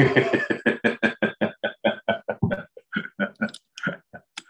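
A man laughing heartily in a run of quick, even bursts, about six a second. The bursts grow sparser and quieter in the second half.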